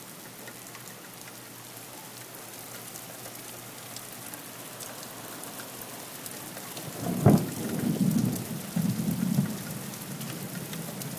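Heavy rain pouring down onto pavement as a steady hiss. About seven seconds in, a sharp thunderclap cracks and rolls on in low rumbles for a couple of seconds.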